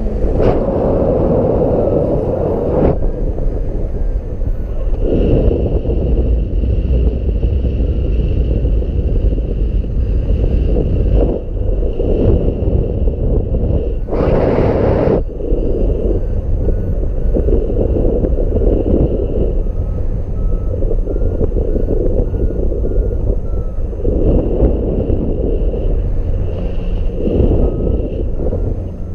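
Strong wind buffeting the microphone in gusts, a heavy rumble throughout, with faint short beeps that step up and down in pitch underneath.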